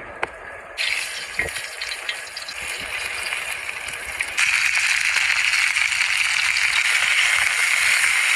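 A steady rushing hiss that gets louder about four seconds in.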